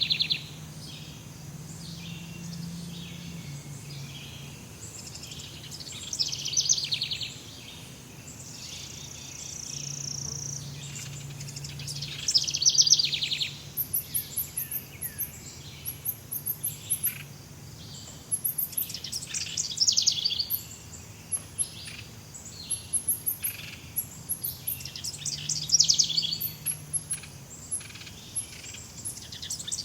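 Jungle birds calling: a loud phrase of rapid trilled notes about every six seconds, with thin, very high chirps joining about halfway through. A faint low hum runs underneath.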